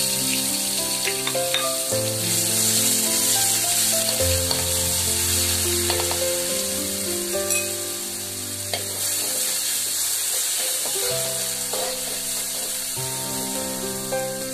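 Hot oil sizzling steadily in a metal wok as crumbled white food fries, with a spatula starting to stir it near the end. Background music with held notes plays over it.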